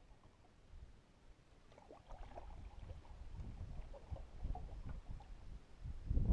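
Water sounds around a canoe on the river: small irregular splashes and lapping against the hull, over a low rumble, growing louder about two seconds in.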